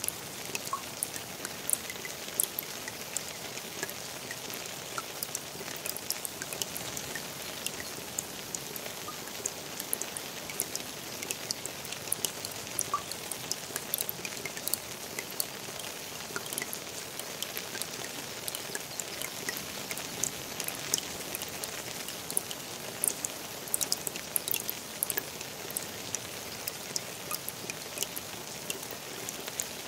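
Rain falling on a garden pond: a steady hiss with many sharp drip-like ticks of drops striking the water surface.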